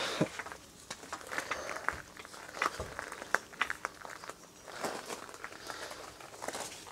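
Jack being worked to raise a Jeep's rear solid axle and load the suspension before the new control arm bolts are tightened: quiet, irregular light clicks and creaks.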